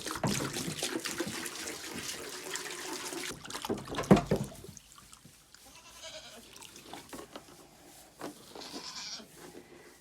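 Water pouring into the goats' water container for about three seconds, then a single loud knock about four seconds in. Goats bleat a couple of times in the quieter second half.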